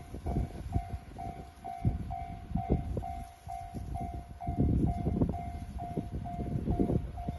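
Japanese level-crossing warning bell ringing, a steady repeated ding a little over twice a second, over a low, uneven rumble.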